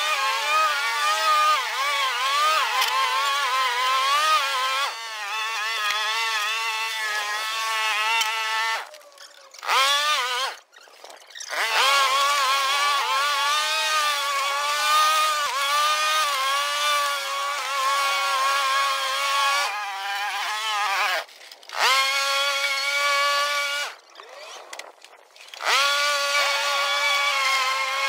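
Honda Izy petrol lawn mower running while cutting tall, overgrown grass, its engine note dipping and recovering as the blade bogs in the heavy growth. The sound drops out briefly twice.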